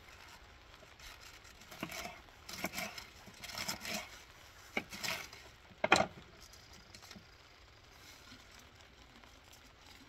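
Cut cabbage being stuffed and pressed down into a jar: rustling and crinkling in uneven bursts, with two sharp knocks, the louder about six seconds in, then it goes quiet.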